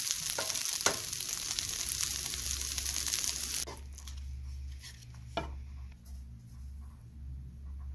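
Wooden spatula stirring and scraping a pan of fried onion, dried chilli and grated coconut, over a steady sizzling hiss that cuts off suddenly about three and a half seconds in. After that only a low hum and a few scrapes of the spatula remain.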